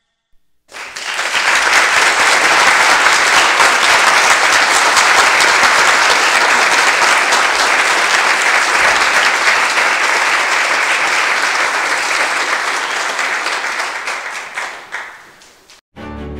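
Audience applauding: a dense, even clapping that starts about a second in, holds steady, then fades away near the end.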